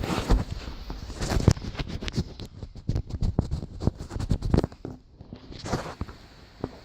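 An irregular series of clicks and knocks, with a brief quiet stretch about five seconds in.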